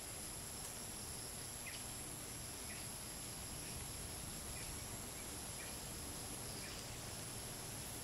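Faint insect chorus of crickets and cicadas, a steady high-pitched drone, with a short chirp repeating about once a second.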